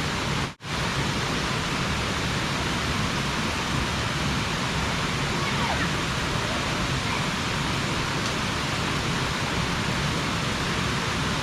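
Steady rushing roar of a waterfall, with a momentary dropout about half a second in.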